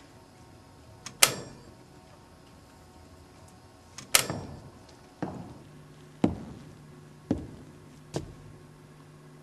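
A run of sharp, ringing knocks: the loudest about a second in and about four seconds in, then four more about a second apart. A low steady hum comes in about halfway through.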